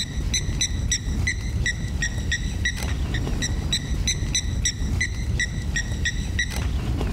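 A bird calling a rapid series of short, high, clear notes, about three a second, over the low rumble of wind on the microphone.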